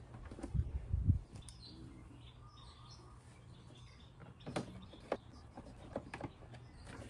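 Phillips screwdriver work on a scooter's plastic body covers: a few dull knocks as the panel is handled and pressed into place about a second in, then scattered sharp clicks and scrapes as screws are driven into the plastic.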